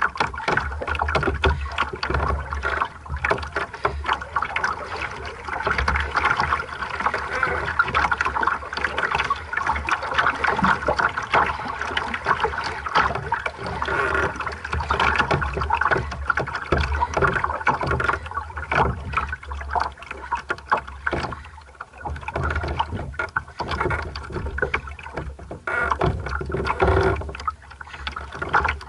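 Water splashing and lapping irregularly against the hull of a small single-handed sailing dinghy moving slowly under sail, over a steady low rumble.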